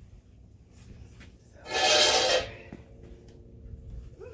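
A single harsh scrape lasting under a second, about two seconds in: the trimmed trunk of a Christmas tree rubbing against the hole of its stand as it is forced down.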